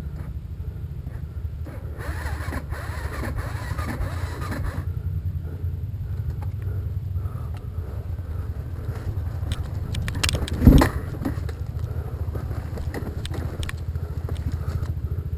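Trail motorcycle engine idling with a steady low pulse. A hissing rush comes in about two seconds in and lasts nearly three seconds, and a single loud knock sounds about ten and a half seconds in.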